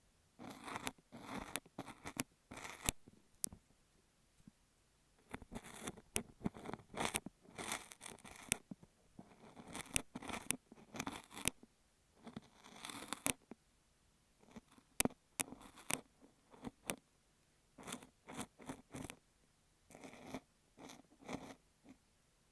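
Close-miked scraping and crunching of an ear pick working kinetic sand on a beeswax sheet over an earphone microphone. It comes in bursts of quick strokes with sharp clicks, broken by pauses of a second or two.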